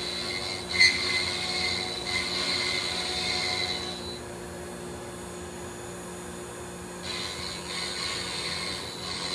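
Lead CNC 1015 router's 80 mm spindle running at low speed with a steady hum while the bit drills and bores a T-nut hole into the MDF spoilboard. A higher whine comes in over it for the first few seconds and again near the end.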